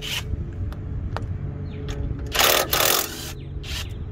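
Cordless impact wrench hammering in one burst of just under a second, about two seconds in, on the bolts at a front brake caliper, with a few sharp metallic clicks around it.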